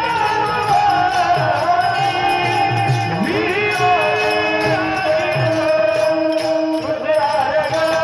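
Marathi devotional kirtan singing: a voice holds long, ornamented notes that slide between pitches, over a steady drum beat and small jingling hand cymbals.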